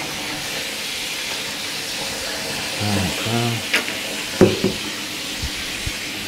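Steady hiss of water running into a bathtub while a wet dog is lathered, with a brief low murmur about three seconds in and a couple of short knocks.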